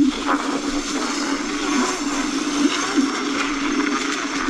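Laotie ES19 electric scooter under throttle: a steady motor whine that wavers slightly in pitch, with its tyres rolling over a trail covered in leaves.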